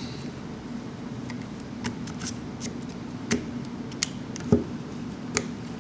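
Small sharp plastic clicks and taps, about half a dozen spread unevenly over a few seconds, from a GoPro Hero 4 Silver being handled as its battery is put in.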